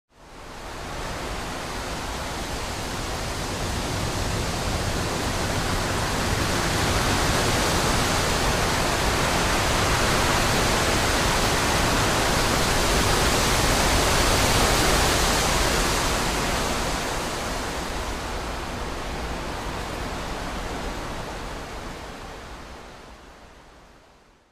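Wind blowing through trees: a steady rushing hiss that starts suddenly, swells slowly to its loudest a little past the middle, then dies away.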